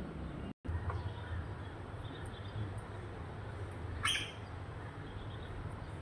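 A parrot gives one short, loud squawk about four seconds in, with a few fainter chirps earlier, over a steady low background hum; the audio drops out for a moment near the start.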